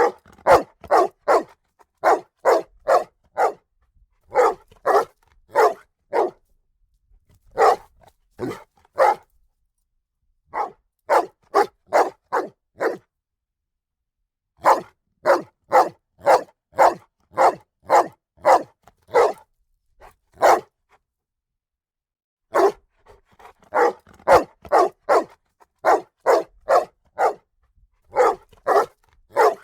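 A dog barking in runs of about three to six barks, two or three barks a second, with pauses of one to two seconds between runs and nothing heard in the gaps.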